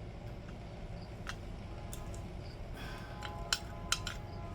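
Small clicks and taps of hands working a motorcycle tail light's bulb socket to pry its little seal off, with two sharper clicks near the end, over a steady low background rumble.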